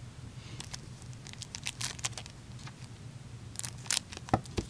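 Trading-card pack wrapper crinkling and tearing as it is opened, heard as a run of small sharp crackles, with a couple of soft thumps near the end.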